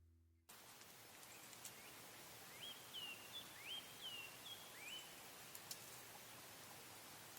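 Faint outdoor ambience in which a bird gives a series of about six short, rising calls, a couple of seconds in; a music tail dies away at the very start.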